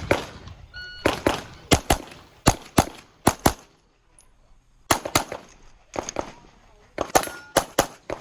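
Rapid 9mm pistol fire from a Glock 34 on a competition stage: quick pairs and strings of shots, with a short pause about four seconds in before firing resumes. Faint ringing follows some shots, fitting hits on steel targets.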